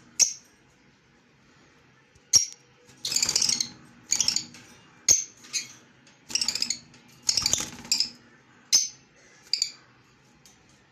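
Pet parrot giving a series of about ten sharp, high-pitched chirps and squawks, some clipped short and a few longer, harsh ones, with short pauses between.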